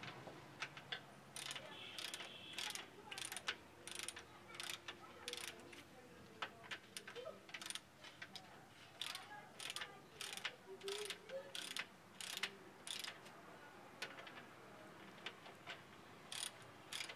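Repeated sharp mechanical clicks and rasps, irregular, about two to three a second, with a short lull near the end.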